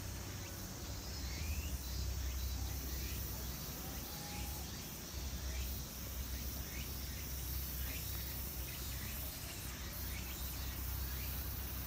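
Steady high-pitched insect drone over a steady low rumble, with faint short rising chirps about once a second.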